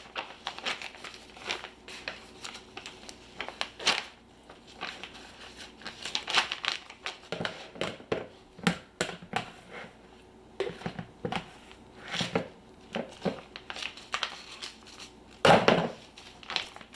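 Plastic bag crinkling and rustling in irregular handfuls as deer meat is packed into it, with a louder crinkle near the end.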